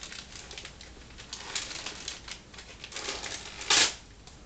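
Wrapping paper and a gift bag rustling and crinkling as a Christmas present is unwrapped, with one louder rustle near the end.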